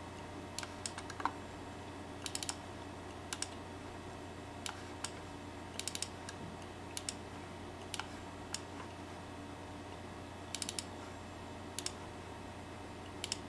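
Scattered sharp clicks of a computer mouse button, some single and some in quick double or triple clicks, over a steady low hum.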